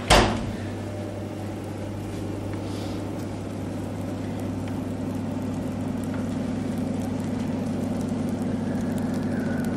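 A sharp knock, then the steady hum of a kitchen appliance's electric motor that cuts off abruptly at the end.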